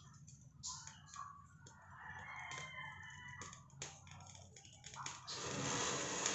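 Kerosene stove burner fuelled with used cooking oil: scattered crackling ticks as the preheated burner vaporizes the oil. About five seconds in, a steady rushing hiss starts suddenly as more oil is fed and the flame flares up.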